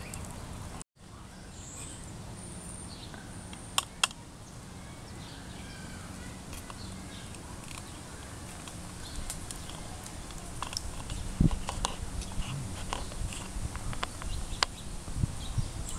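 Outdoor background with a few short bird chirps, then, in the second half, a plastic spork knocking and scraping against the inside of a tin can in a string of small clicks and knocks.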